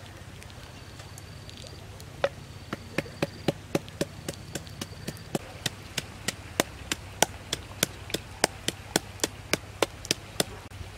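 Wooden pestle pounding in a wooden mortar, crushing chilies for chili salt. The knocks start about two seconds in and keep a regular beat of about three a second until just before the end.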